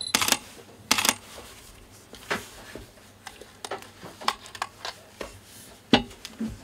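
Handling noise from a Sony FE 24mm F1.4 GM lens and camera body held in cotton gloves: an irregular run of sharp clicks and knocks as the lens is turned and taken off the camera's bayonet mount, the loudest knock about six seconds in.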